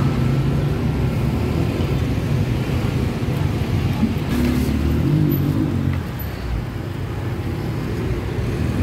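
Street traffic with a motor vehicle engine running close by. It grows louder about four seconds in and drops away at about six seconds.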